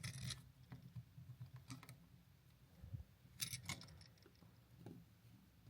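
Faint, scattered clicks and rustles of hands handling copper wires and a plastic outlet, bending the wire ends to loop around the terminal screws; a small cluster of clicks a little after the middle is the loudest.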